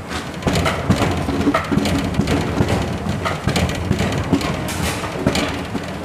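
Gloved hands kneading a thick çiğ köfte paste in a large steel tray: a busy, irregular run of wet squelches and slaps.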